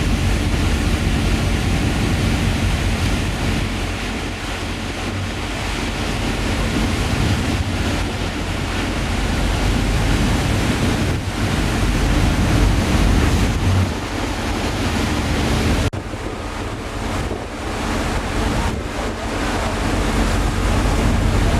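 Wind buffeting the microphone over a steady low mechanical hum, with an abrupt drop in level about sixteen seconds in.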